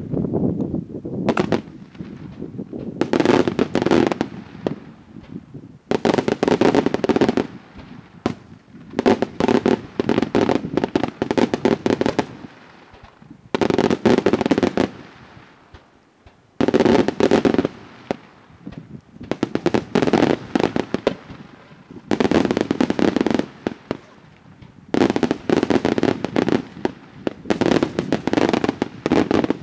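Daytime aerial fireworks: shells bursting into rapid strings of sharp crackling reports. The reports come in dense salvos of a second or two, one after another, with short quieter gaps between them.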